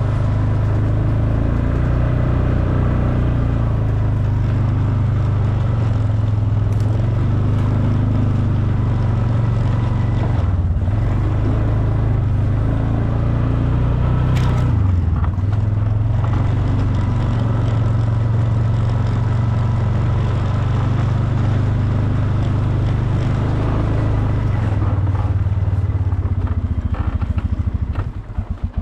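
ATV engine running steadily under way, its note dipping briefly a couple of times. Near the end it drops to a pulsing idle.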